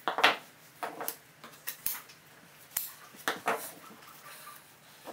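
Irregular short knocks and clatter from hand work on a dashboard crash pad with a metal frame as it is handled and pressed on a bench, with steel shears handled among them.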